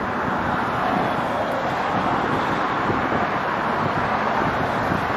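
Steady rush of road traffic mixed with wind buffeting the microphone.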